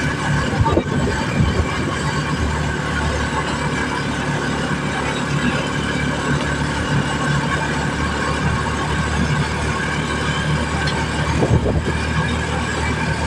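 Small motorcycle engine of a motor tricycle running at a steady pace while riding along a road, with road and wind noise from the open cab.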